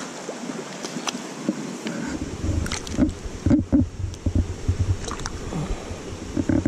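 Someone wading in a shallow, rocky creek: water sloshing around the legs, with clothing rubbing and bumping against the microphone in a run of low, uneven thumps from about two seconds in.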